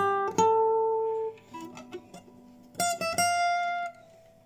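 Nylon-string classical guitar, fitted with a homemade compensated bridge saddle, played note by note. A strong note near the start rings for about a second, then a few quieter notes follow. Two strong plucks about three seconds in ring on and fade near the end.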